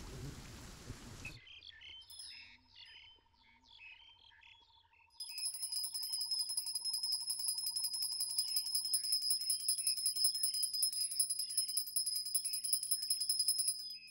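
Rain cuts off about a second in, leaving birds chirping. From about five seconds in a small puja hand bell is rung rapidly and without pause, a steady high ring that stops just before the end.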